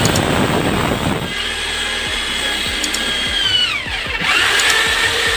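Corded electric drill boring a small pilot hole through ceramic wall tile, its motor whining steadily at high speed. About three and a half seconds in the pitch glides down as the drill slows, then it speeds back up.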